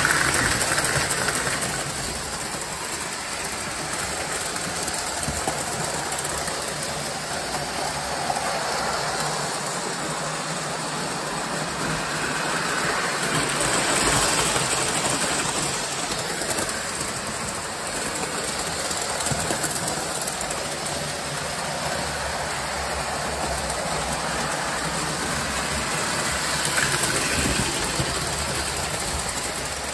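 O scale three-rail model trains running on tubular metal track: a steady whir and rumble of motors and wheels on the rails, swelling at the start, about halfway through and near the end as a locomotive passes close by.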